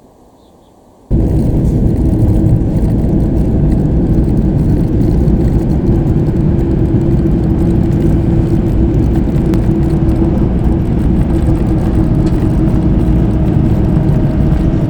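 Moving van heard from a camcorder held out of its window: loud, steady road and engine noise with a constant hum, cutting in suddenly about a second in.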